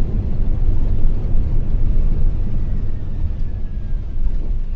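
Steady low rumble of a McDonnell Douglas MD-11 heard in the cockpit during its landing rollout, the airliner decelerating on the runway. A faint thin whine falls slightly in pitch midway through.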